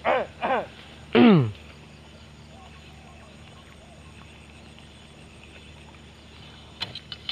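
Three short animal calls, each sliding steeply down in pitch, in the first second and a half, then quiet open-air background with a low steady hum and a few faint clicks near the end.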